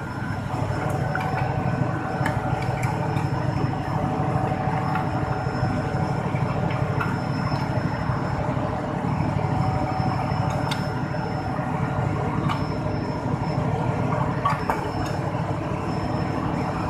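Steady drone of running machinery with a faint whine on top, and a few light metallic clicks as a wrench turns a three-jaw gear puller's screw.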